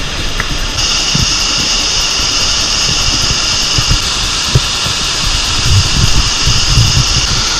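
Steady rushing roar of a creek waterfall, with wind buffeting the microphone in low thumps. A high steady hiss rides over it from about a second in until just before the end.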